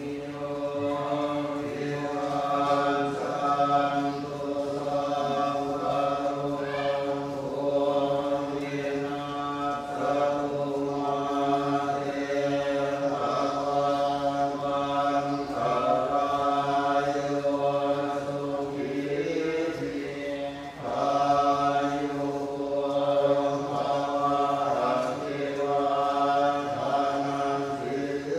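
Theravada Buddhist chanting: a group of men's voices reciting in unison on long, steady held notes, with a short pause about twenty seconds in.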